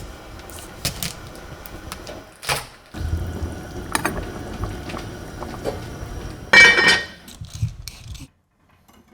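Kitchen utensils and cookware being handled: scattered clicks and knocks, with a louder ringing clatter about six and a half seconds in, then the sound cuts off suddenly.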